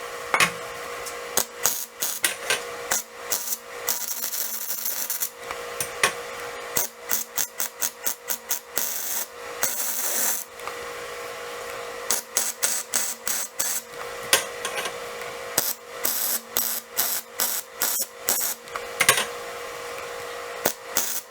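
Steel fabrication work: runs of short, sharp rasping strokes and metal taps, broken by a few longer hissing bursts of up to about two seconds, over a steady low hum.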